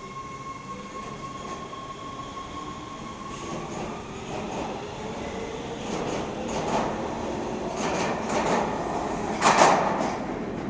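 Metro B Line subway train in the underground station, growing louder as it approaches. A steady high whine fades out in the first few seconds, then wheel clacks build up, with a loud rushing burst about nine and a half seconds in.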